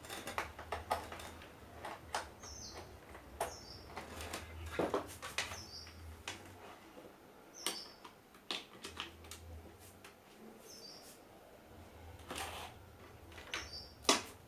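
Scattered clicks and knocks of things being handled, with a short, high, downward-stepping chirp like a small bird's call repeating about six times, over an intermittent low hum.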